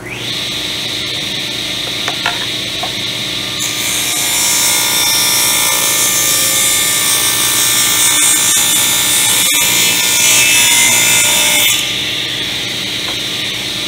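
Table saw winding up right at the start and running with a steady whine, then ripping a piece of plywood along the grain from about four seconds in until near the end; the cut makes the sound much louder and rougher, and the blade spins free again afterwards.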